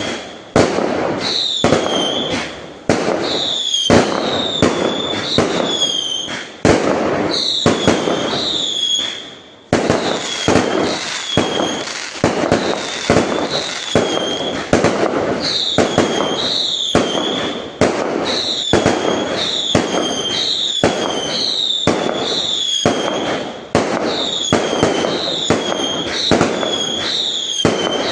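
Fireworks going off in a dense, continuous barrage of bangs and crackle, with short high curving whistle-like tones repeating every second or so.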